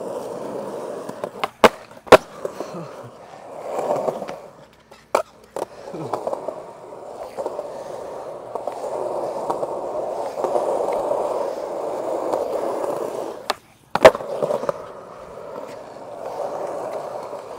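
Skateboard wheels rolling steadily over concrete, with sharp board clacks in pairs about half a second apart: about two seconds in, around five seconds in, and loudest again about fourteen seconds in.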